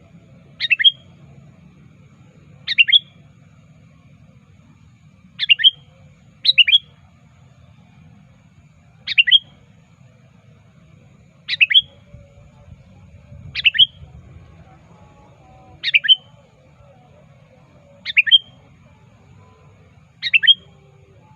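Male sooty-headed bulbul (kutilang) calling actively to challenge a rival: short, sharp bursts of a few quick notes, repeated about every two seconds, over a faint low hum.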